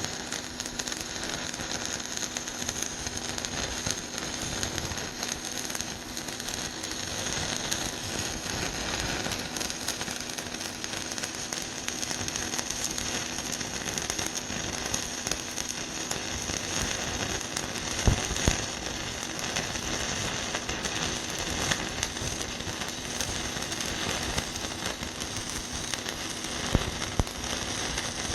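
Stick-welding arc burning on rusted steel pipe: a continuous frying crackle from a 3/32-inch electrode run at 75 amps, with a steady hum beneath and a couple of louder pops.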